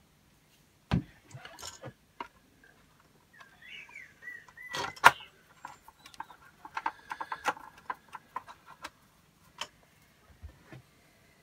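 Screws and hand tools handled on a plastic R2-D2 droid part: a knock about a second in, a short squeak, a sharp click about five seconds in, then a quick run of light clicks, with scattered taps near the end.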